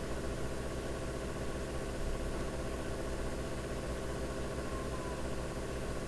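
Steady low mechanical hum with several fixed tones, unchanging.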